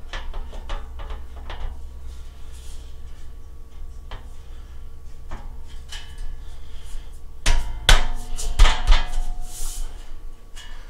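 Steel welding-table top being shifted and seated on its folding metal frame: scattered light metal clicks and taps, then a cluster of louder clanks about seven and a half seconds in.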